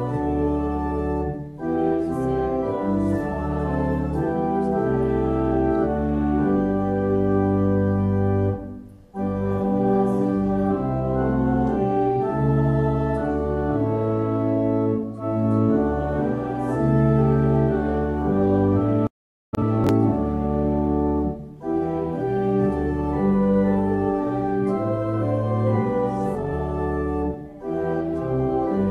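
Church pipe organ playing a hymn in sustained chords, with short breaks between phrases. The sound cuts out completely for an instant about two-thirds of the way through.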